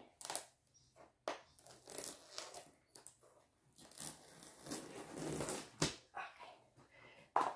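Plastic shrink wrap on a cardboard box being cut and torn open: irregular crinkling and scratching with a few short clicks.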